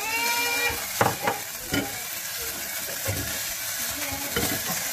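Garlic, chili and spring onion sizzling in hot oil in a nonstick pot while a silicone spatula stirs them, with a few knocks of the spatula against the pot, the loudest about a second in. A short rising tone sounds in the first second.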